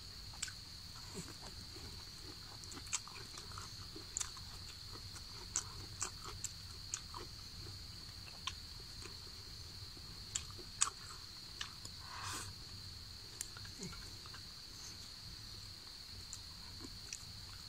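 Close-up eating sounds: scattered soft clicks and smacks of someone chewing food and taking bites with chopsticks. A steady high-pitched insect drone runs underneath.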